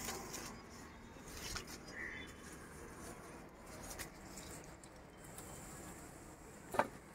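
Faint rustling of vine leaves and stems, with a few soft clicks as ivy gourds are plucked by hand, and one sharper click near the end.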